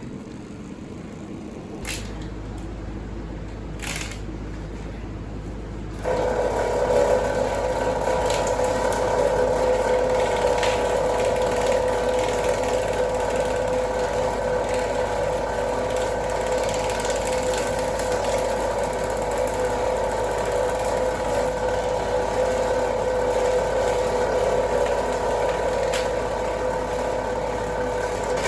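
Electric wire-stripping machine running, its geared rollers and blades pulling a cable through. There is a low hum and a couple of clicks, then from about six seconds a louder steady mechanical whir with a held tone.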